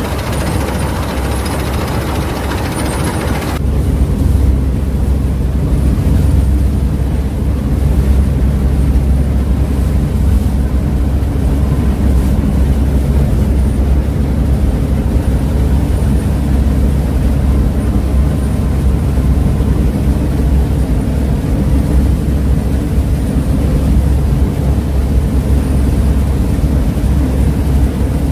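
Claas Mercator 50 combine harvester running with a steady low engine drone. About three and a half seconds in, the higher hiss and rattle drop away suddenly and the low drone grows louder.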